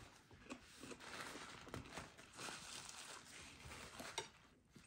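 Faint crinkling and rustling with a few soft ticks: a paper napkin being handled while baked chicken is pulled apart by hand.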